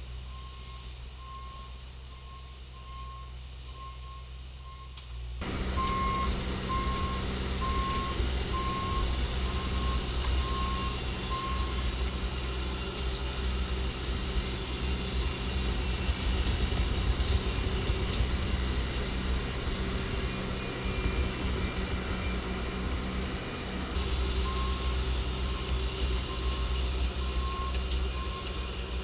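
Bobcat T870 compact track loader's diesel engine running while its backup alarm beeps steadily as it reverses. About five seconds in the engine gets much louder as it is throttled up and works. The beeping stops for a stretch in the middle and returns near the end.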